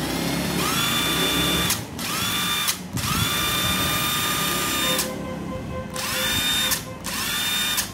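Bosch 14.4 V cordless drill motor run in reverse in several short bursts on its trigger. Each burst spins up to a steady whine and stops, and one run in the middle is at a lower speed. It is a test that the reverse and variable speed work.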